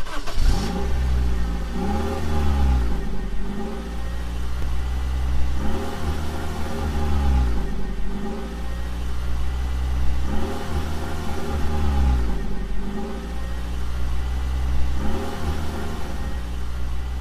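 Car engine idling with a steady low hum and revved in short blips several times, its pitch rising and falling with each blip.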